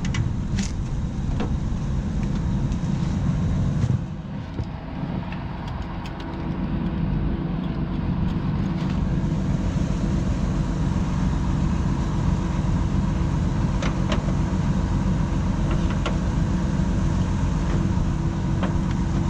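Combine engine running steadily, a low rumble with a faint steady hum, dipping briefly about four seconds in; a few faint clicks over it.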